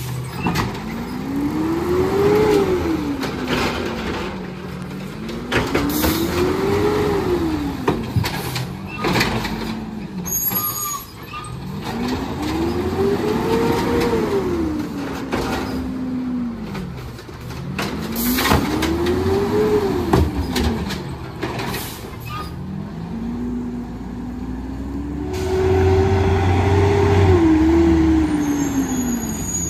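2011 Peterbilt 320 garbage truck's CNG engine revving hard, rising and falling about five times as it drives the hydraulics of the Amrep automated side-loader arm lifting and dumping a trash cart. Clanks of the arm and cart, with a brief air hiss about ten seconds in.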